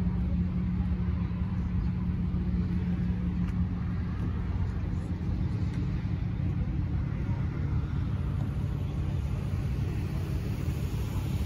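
Kia Stinger's engine idling steadily, a low even hum that eases a little about halfway through.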